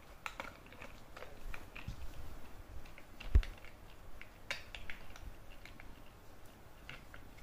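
Corgi puppy working at a spiky rubber treat toy on a hard floor, mouthing it and moving it about: scattered small clicks and taps. A single low thump about three seconds in is the loudest sound.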